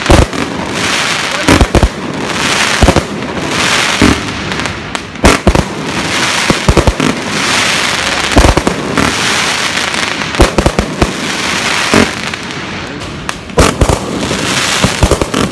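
A 100-shot aerial fireworks cake firing at close range: sharp bangs about one or two a second over a continuous hissing crackle of burning stars.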